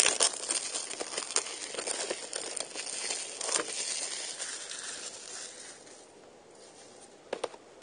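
Plastic shrink-wrap being torn and crinkled off a VHS tape: a dense run of crackles for about five seconds, then only a few faint rustles and clicks near the end.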